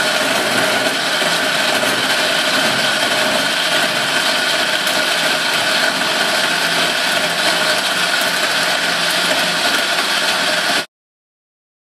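LadyShip LS-658 blender running steadily at speed, its motor whining as it blends ice, dried almonds, dates, pineapple and banana in milk. The sound cuts off abruptly near the end.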